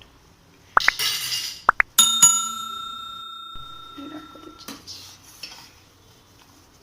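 Metal kitchen utensils clinking: a ladle and a metal pot knock together several times, and one hard strike about two seconds in leaves the pot ringing for about two and a half seconds.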